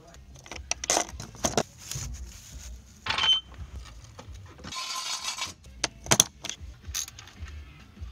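A quick run of sharp metallic clanks, clinks and knocks from car-lifting gear and hand tools being set down and handled, with a short scraping rush about five seconds in.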